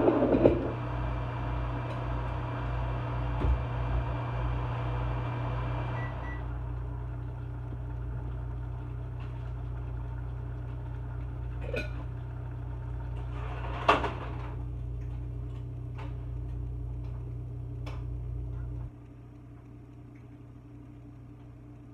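Steady electrical hum from an over-the-range microwave and its vent fan. Part of the hum stops about six seconds in, and the low hum cuts off suddenly near the end. A few light clicks and one sharper knock of kitchenware come in the middle.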